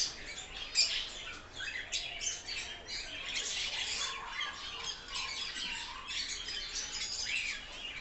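A roomful of small cage birds, zebra finches among them, chirping and calling in a dense, overlapping chatter of short high calls.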